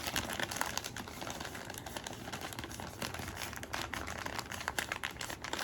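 Plastic blind-box bag crinkling as it is handled and opened: a steady run of small, irregular crackles.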